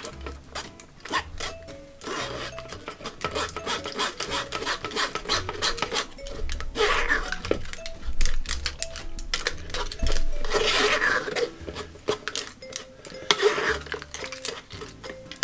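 Metal spoon scraping and pressing thick tamarind pulp through a mesh sieve, a repeated rasping rub of many short strokes, over light jazz background music.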